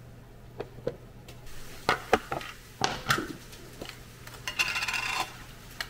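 Knocks and clicks of kitchen utensils being handled on a countertop, then, near the end, about a second of rapid metallic clinking and rattling from a nested set of round metal cookie cutters.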